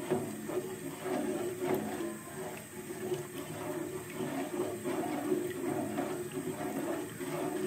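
Rice-flour and coconut-milk batter being stirred in a cooking pot: a series of uneven stirring strokes, the liquid moving against the pot with each stroke, over a steady low hum.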